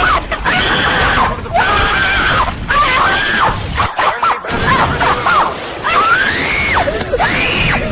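A run of loud, drawn-out screams, each shriek rising and then falling in pitch, with a brief break about halfway through.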